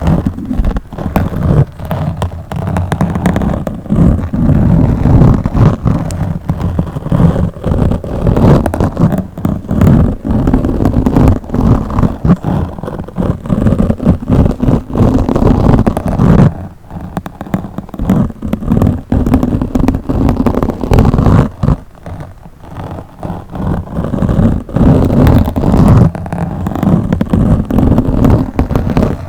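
Scratching directly on a microphone: a loud, dense rasping full of crackles and pops, easing off briefly twice.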